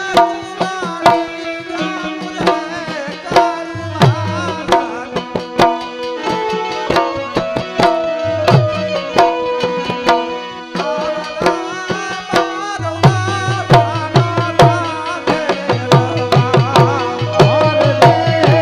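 Live Gujarati folk music: a hand drum plays a steady, busy rhythm of strokes under a harmonium and a keyed benjo carrying a wavering melody.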